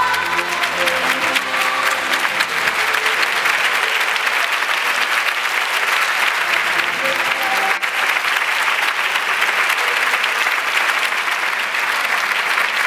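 Audience applauding steadily, with the last of the routine's music dying away in the first few seconds.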